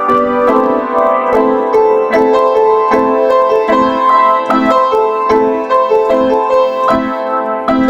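Background music: a piano-like keyboard playing an even, steady run of notes.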